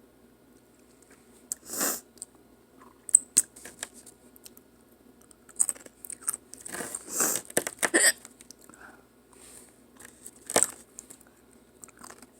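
Sriracha Doritos tortilla chips being bitten and chewed: irregular crunching in short bouts with sharp clicks, busiest in the middle.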